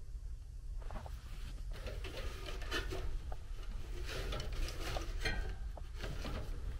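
Light irregular clatter and rubbing of a hand working inside a Rheem furnace's blower compartment, brushing wiring and sheet metal while turning the blower wheel by hand, over a low steady hum. The wheel turns freely, so the blower motor is not seized.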